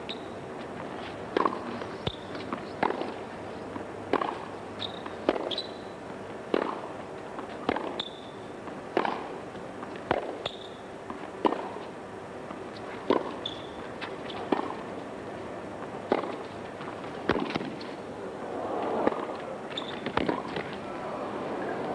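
Tennis ball struck back and forth in a long baseline rally: sharp pops of racket on ball about every second and a half, with lighter bounces between them. Short high squeaks of tennis shoes on the hard court come here and there. A crowd murmur rises near the end.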